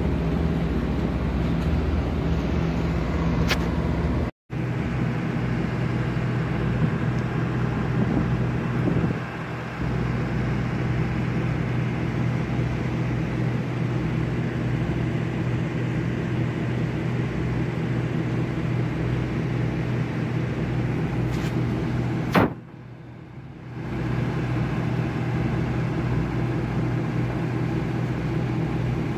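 Tugboat diesel engine running with a steady low hum. The sound cuts out for an instant about four seconds in and dips quieter for a second or so about two-thirds of the way through.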